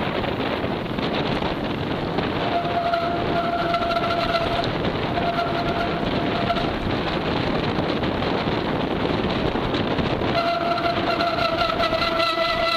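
Mountain bike brakes squealing in a steady high-pitched tone with overtones, in two short spells a few seconds in and then without a break from about ten seconds, over a steady rush of wind noise on the descent. The squeal comes from brakes that the rider calls an embarrassment.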